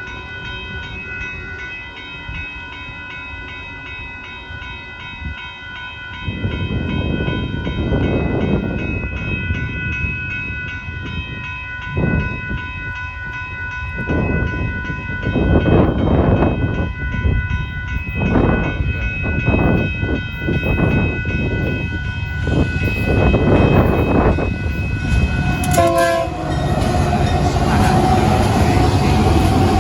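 Union Pacific freight locomotive's multi-chime air horn sounding a long, steady chord as the gravel train approaches. The rumble of the locomotive and its wheels grows from about six seconds in and swells several times. Near the end the horn stops and the loud rumble of the passing train carries on.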